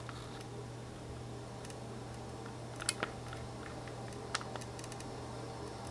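Quiet room tone with a low steady hum and a few small handling clicks from the hand-held photo print and camera: two close together about three seconds in and one a little after four seconds.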